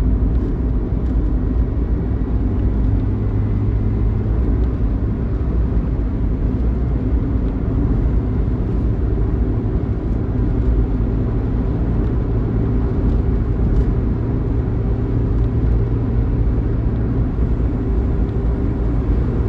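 Intercity bus running steadily at highway speed: a constant low engine drone with road rumble, heard from inside the bus.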